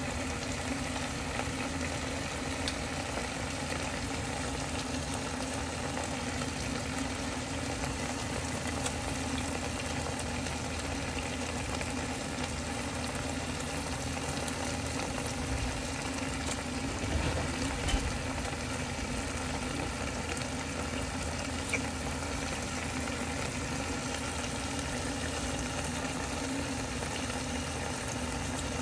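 A lidded pot of napa cabbage and chicken broth simmering on the stove: a steady bubbling hiss with a low hum underneath, and a faint knock or two.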